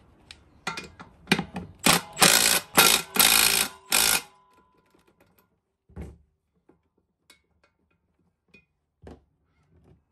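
Milwaukee 12-volt cordless impact driver hammering the swingback-blade bolts on a lawn mower's blade carrier tight, in a string of short bursts lasting about three and a half seconds. A few light knocks follow.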